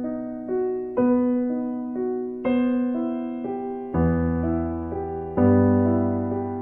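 Background piano music: slow single notes and chords, each struck and left to fade, with deeper bass notes joining about four seconds in.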